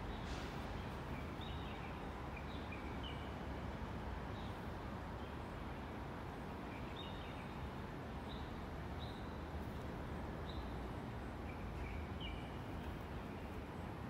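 Outdoor ambience: small birds chirping in short, scattered calls over a steady low rumble.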